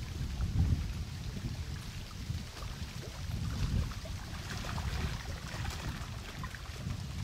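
Wind buffeting the microphone: a low rumble that rises and falls in gusts, with faint scattered ticks in the middle.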